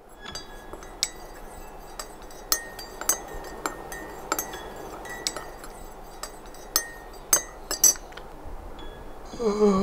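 Metal teaspoon stirring a drink in a ceramic mug, clinking irregularly against the sides about two or three times a second; the stirring stops about two seconds before the end. Just before the end a louder sound with a pitch that slides down begins.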